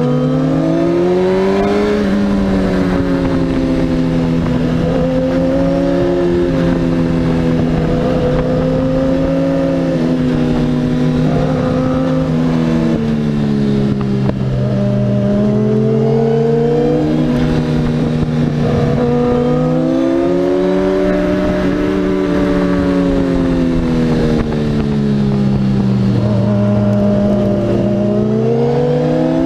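Sport motorcycle engine heard from on board, its pitch rising as the throttle opens and falling as it is rolled off, several times over, with wind rushing past.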